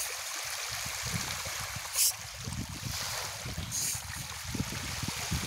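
Water splashing and churning as a dense crowd of fish thrashes at the surface, with a sharper splash about two seconds in and another just before four seconds.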